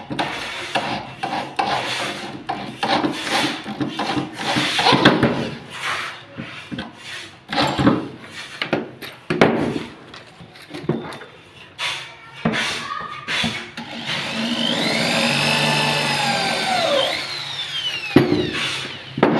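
Electric drill driving screws through the steel bracket of a hydraulic bed-lift fitting into the board, among handling knocks and rubbing. About three-quarters of the way in, the drill runs for about three seconds, its motor whine rising, holding and then dropping as the screw goes home.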